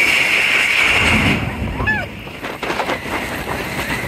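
Riders screaming on the Expedition Everest roller coaster, a sustained chorus of screams that breaks off about a second and a half in. A few short rising-and-falling yells follow, over the rumble of the train running on the track.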